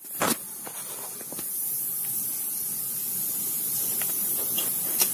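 A steady high hiss, with a sharp knock just after the start and a short click near the end.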